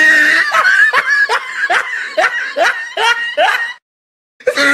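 High-pitched laughter: a held laugh, then a run of short rising giggles about two a second. It cuts off abruptly near the end and starts up again.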